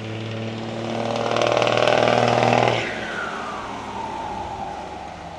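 Turbo diesel engine of a Ford truck whose turbocharger is fitted with a "pente" (comb insert) to make it roar. The engine and turbo noise build to a loud peak just under three seconds in, then drop away suddenly, leaving a whistle that falls steadily in pitch.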